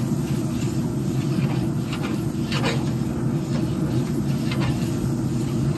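Wet Grill Rescue brush scraping and scrubbing across hot grill grates, steam hissing off the metal, with a few sharper scraping strokes about two, two and a half and four and a half seconds in. A steady low rumble runs underneath.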